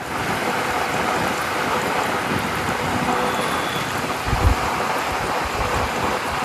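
Wind and road noise rushing past the open cab window of a truck moving at speed, with gusts buffeting the microphone, the strongest about four and a half seconds in.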